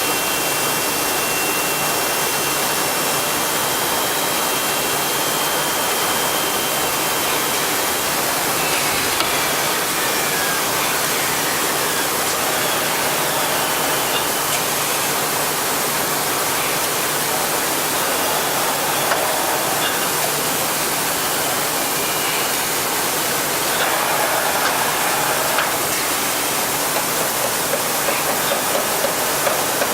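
Heian ER 531P CNC router running: a loud, steady rushing machine noise with faint high whining tones, typical of the spindle and dust extraction running during a cut.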